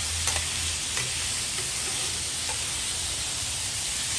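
Ribeye steak sizzling steadily on a hot flat-top griddle, with a few light taps and scrapes of a metal chopper and spatula against the griddle.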